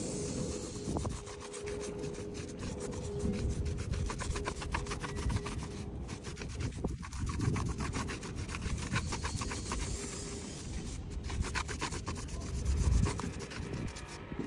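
Cloth rubbed by hand over a motorbike tyre's rubber sidewall, working in tyre-blackening dressing: a quick scratchy rubbing of many short strokes, with a short break about seven seconds in.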